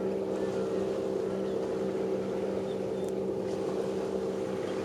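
Steady drone of a boat engine running at a constant pitch, with no rise or fall.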